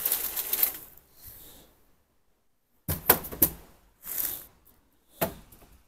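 Plastic shopping bag rustling and crinkling in short bursts as knitted items and yarn are pulled out of it, with a brief dead gap partway through.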